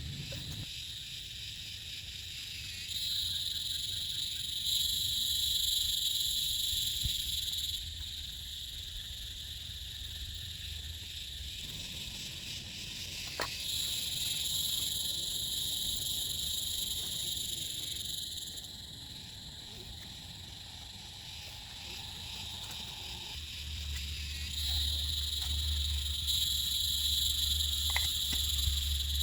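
A high-pitched animal chorus of frogs or insects, calling steadily in three bouts of about five seconds with quieter gaps between. A low steady rumble rises near the end, and there are a couple of sharp ticks.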